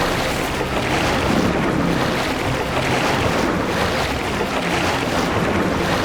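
Heavy water splashing and churning in repeated surges as two bull hippos fight in the river.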